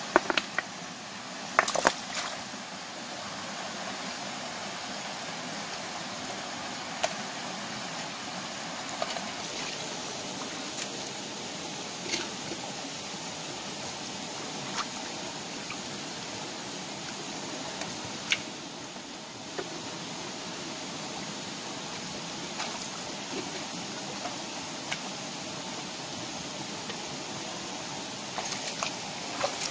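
Shallow stream running over rocks, a steady rush of water, with occasional sharp knocks and splashes from stones being handled in the water: a cluster in the first two seconds and another near the end.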